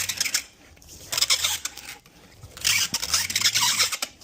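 Packing tape being pulled off its roll in rips: a short one at the start, another about a second in, then a longer rip of over a second near the end.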